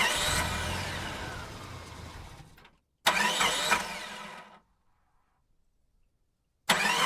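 An engine starting up, heard three times in a row. Each start comes in suddenly and loud, then dies away over one to three seconds, with a short gap between them.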